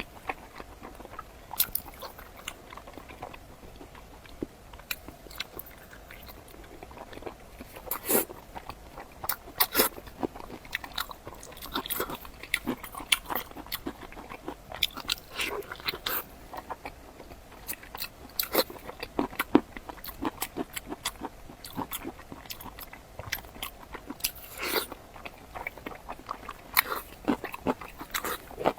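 Close-miked eating sounds: a person biting and chewing food, with many sharp wet clicks and small crunches. They grow busier and louder after the first several seconds.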